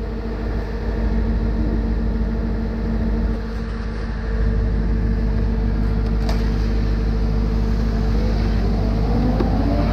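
Diesel engines of a concrete mixer truck and a Schwing trailer concrete pump running steadily, a constant engine hum with low rumble. The loudness dips briefly about three and a half seconds in.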